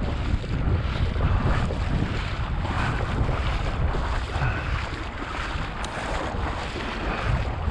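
A person wading through shallow marsh water, the water sloshing in patches every second or so, over a steady rumble of wind on the microphone.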